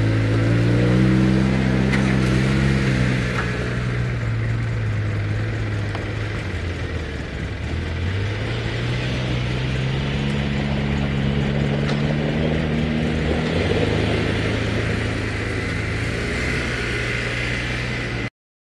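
Polaris Ranger 6x6 utility vehicle engines running and revving as the vehicles pull away, the pitch rising over the first few seconds, dipping about seven seconds in, then rising again. A few sharp clicks sound along the way, and the sound cuts off abruptly near the end.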